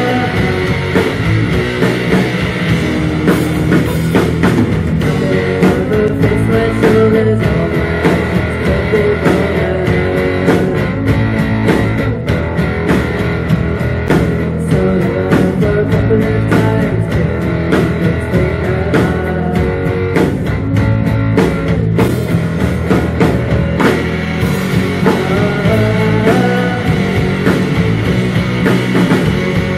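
A live rock band playing: electric guitars, bass and a drum kit, filmed from the audience in a small venue.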